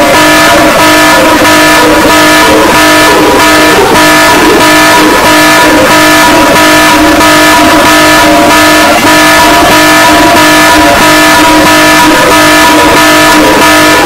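Loud, harsh electronic emergency-alert alarm tone: several steady pitches sounding together under a rhythmic, distorted pulsing noise, kept up without a break.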